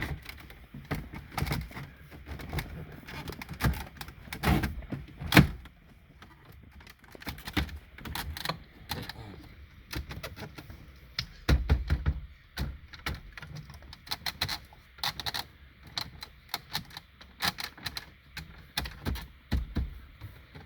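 Irregular plastic clicks, taps and knocks of a Uconnect head unit and dashboard trim being handled and fitted into a truck dash.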